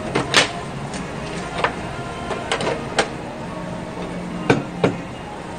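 Dishes, containers and trays being handled and set down on a restaurant table: about eight scattered sharp knocks and clinks, a pair at the start, a cluster around the middle and two more near the end, over a steady background hum.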